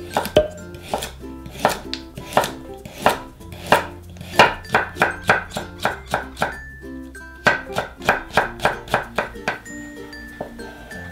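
Kitchen knife chopping on a cutting board, with spaced single strokes at first and then a quick run of rapid chops, over light background music.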